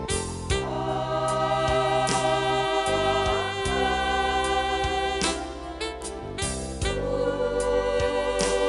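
A church vocal group singing a gospel song in several voices over instrumental accompaniment, with held bass notes and sharp percussion strikes.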